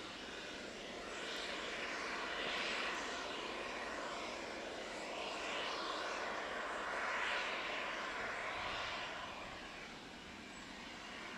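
Aircraft engine noise: a steady rushing hiss that swells and fades several times, loudest about a third of the way in and again past the middle, and eases off near the end.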